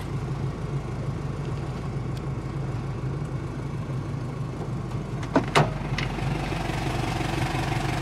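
Car engine idling steadily, heard from inside the cabin. About five and a half seconds in, two sharp clicks as the door latch is released and the car door is opened, after which the surrounding noise grows a little louder.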